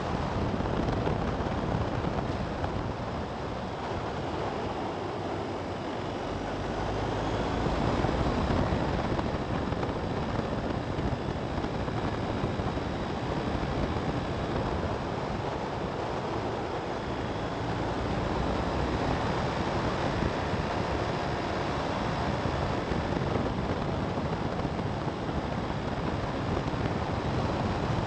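Wind noise on the microphone with road and tyre noise from a vehicle driving at about 50 km/h, a steady rushing without a clear engine note.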